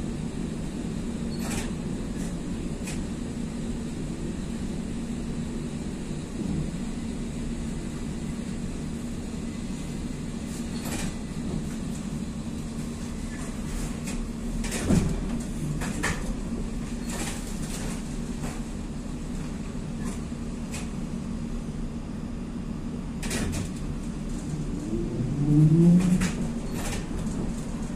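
Cabin noise of a ZiU-682G-016.05 trolleybus on the move: a steady low hum with scattered clicks and knocks from the body and fittings. About two seconds before the end there is a brief louder sound whose pitch rises.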